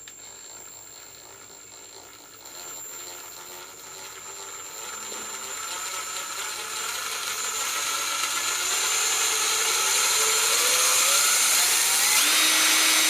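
Ryobi 18V ONE+ cordless impact driver running free with no load, the trigger squeezed in slowly so that the motor speed and pitch climb steadily. It grows louder throughout and reaches full speed near the end.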